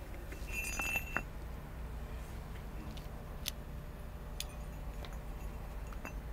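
Metal clinking: a quick cluster of clinks with a brief ringing tone about half a second to a second in, then a few single sharp ticks, over a steady low hum.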